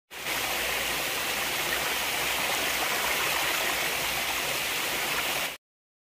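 Waterfall water rushing steadily over the rocks of a natural rock pool, an even, constant rush that cuts off abruptly about five and a half seconds in.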